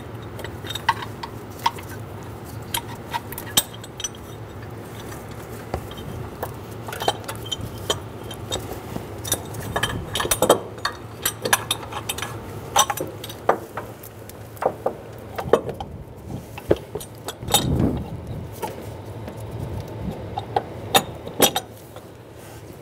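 Irregular metallic clinks and knocks as a steel engine mount bracket plate, with its bolts set in it, is handled and worked into place against the engine, with one heavier knock about three-quarters of the way through.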